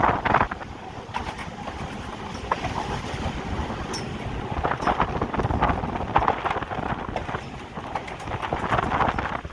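Cab of a GE U18C diesel-electric locomotive under way, heard from inside: a low rumble with irregular clattering and knocking that swells several times.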